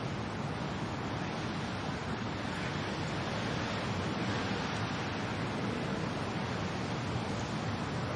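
Wind and rain making a steady, even hiss.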